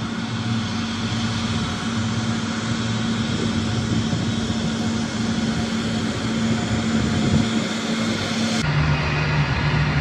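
Jet airliner's engines running steadily as it taxis, a continuous hum with a higher whine over it. A little before the end the sound changes abruptly to a deeper, lower hum.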